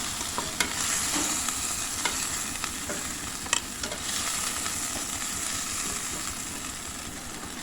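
Chicken sizzling in hot oil in a cast iron skillet, a steady frying hiss with a few sharp clinks of a utensil against the pan as the pieces are lifted out.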